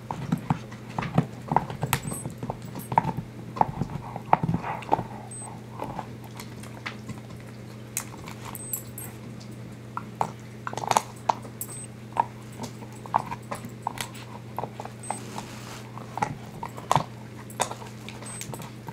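A Manchester terrier gnawing on a stuffed hoof: irregular sharp clicks, knocks and scrapes of teeth on hard hoof, several a second, over a steady low hum.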